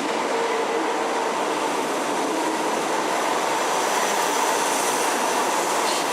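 Electric train running on the rails, a steady rumble of wheels with a faint whine held on a steady pitch.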